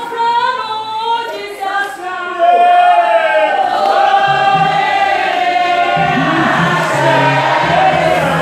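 A choir singing a gospel song with instrumental backing, growing louder about two and a half seconds in, with low bass notes under the voices in the second half.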